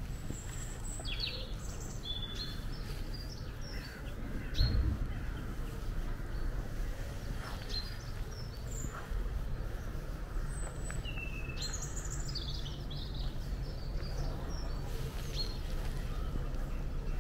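Birds chirping and calling in short scattered phrases over a steady low rumble, with one brief dull thump about four and a half seconds in.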